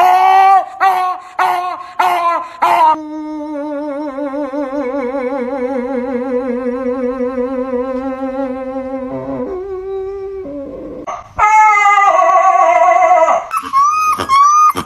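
A dog's vocalizing. It opens with a run of short rising-and-falling whines, then gives one long wavering howl lasting about six seconds. After a brief gap come louder wavering whines and a few quick yips near the end.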